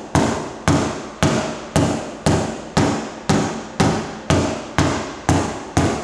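Body hammer tapping steadily on the sheet-metal skin of a Chevy Traverse door, about two blows a second, each with a short metallic ring. The taps push metal back into the area beside a sharp body line so that the straightened line stays up.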